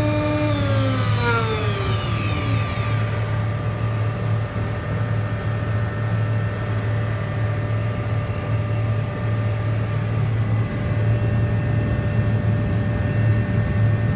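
A CNC machine's motor whine falls steadily in pitch and dies away over the first three seconds, as though its spindle were spinning down. A steady low machine hum carries on beneath it and stays after the whine is gone.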